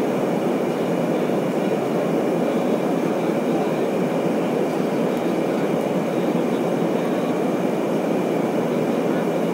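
Steady cabin noise of a Boeing 737 at cruise altitude: an even, unbroken rush of jet engines and airflow, with a faint steady whine above it.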